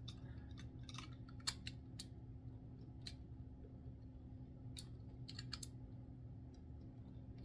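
Faint, irregular plastic clicks as a Bandai Hyper Cluster yo-yo's snap-on skin is fitted and twisted onto the yo-yo body until it locks.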